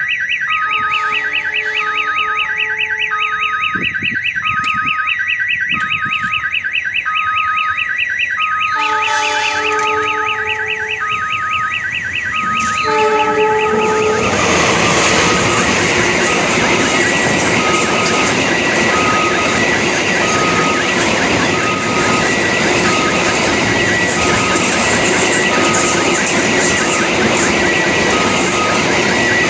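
Level-crossing warning siren warbling rapidly with a repeating beep, a tune like an odong-odong kiddie-ride siren. A train horn sounds in chord-like blasts three times. About fourteen seconds in, the train arrives and passes with loud, steady wheel-on-rail noise while the siren keeps going.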